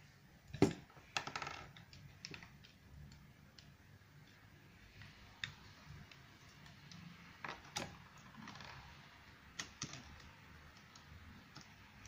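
Plastic LEGO WeDo 2.0 pieces and wheels being handled and pressed together on a wooden tabletop: scattered clicks and light knocks, the loudest about half a second in.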